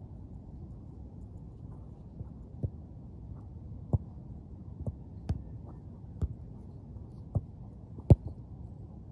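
A football kicked hard, one sharp loud thud near the end, after several fainter knocks spaced about a second apart. A steady low background noise runs underneath.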